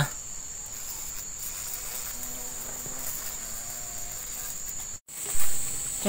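Steady high-pitched drone of insects, with a faint voice partway through. The drone breaks off abruptly about five seconds in, and a brief louder noise follows.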